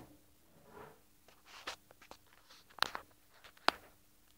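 Scattered light clicks and knocks of handling, a few in the first half and the loudest about three seconds in, over a faint steady hum.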